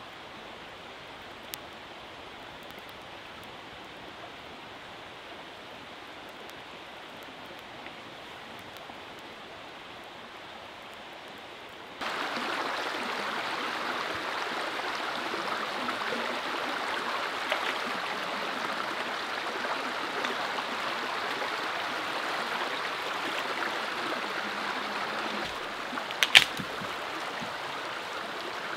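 A small river flowing steadily, fainter at first and then louder from about twelve seconds in. Near the end, two sharp cracks of a dead branch snapping.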